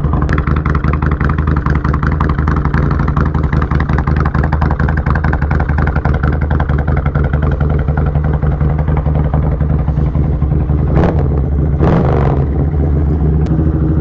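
Kawasaki Vulcan 1500 Nomad V-twin idling steadily on partial choke, warming up after a cold start. Twice near the end a brief rushing noise rises over it.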